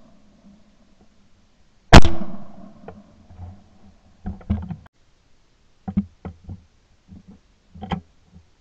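A single loud shotgun shot about two seconds in, ringing away over about a second, followed by several groups of light clicks and knocks from the gun being handled.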